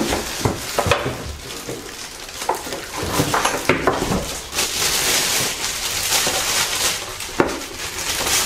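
Clear plastic wrapping crinkling and rustling as a wrapped grill part is handled inside a cardboard box, densest a little past the middle, with a few light knocks.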